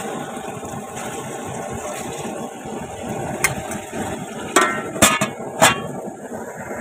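Chicken pieces frying in oil in an aluminium pot, a steady sizzle, being half-done before tomatoes go in. In the second half, a few sharp metal clinks as the spoon and the aluminium lid strike the pot and the lid is put on.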